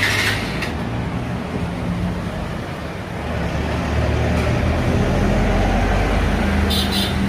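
Bajaj Pulsar 150's single-cylinder four-stroke engine running at idle after a kick start, getting louder about four seconds in.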